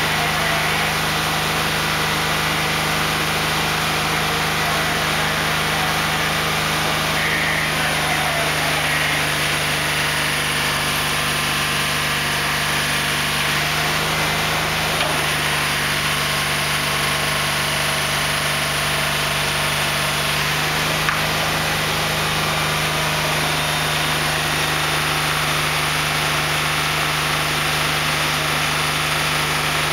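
Diesel engine of a multi-axle heavy-haulage transporter running steadily at low revs as it moves slowly under load.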